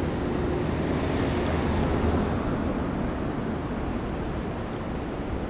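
Blizzard wind blowing across the microphone, a steady rumbling rush, with the sound of cars on the snowy street mixed in.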